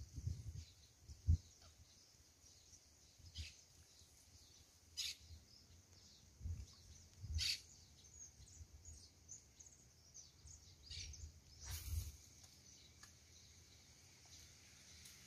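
Faint outdoor ambience with scattered bird chirps, a few short sharp sounds and some low thumps.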